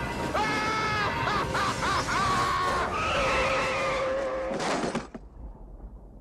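Two men screaming in terror, their wavering high-pitched cries over a steady rumble. A sudden loud burst cuts it off near the five-second mark, leaving only a faint rumble.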